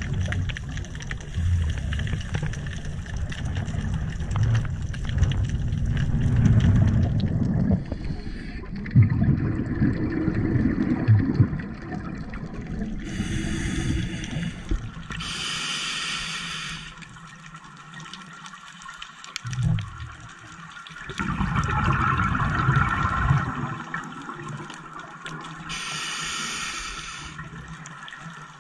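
Scuba regulator breathing recorded underwater: recurring bubbling surges of exhaled air, with three short hissing breaths, two about halfway through and one near the end.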